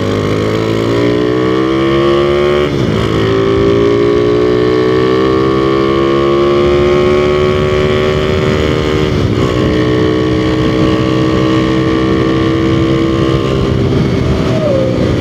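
Honda Revo Absolute's single-cylinder four-stroke engine, running through a Tsukigi aftermarket exhaust, pulling under throttle while riding. The exhaust note rises in pitch, dips sharply twice (about 3 and 9 seconds in) as it shifts up, then holds fairly steady.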